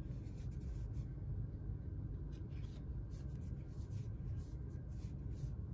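Baseball trading cards being flipped through by hand: soft, scattered paper flicks and rubs over a steady low hum.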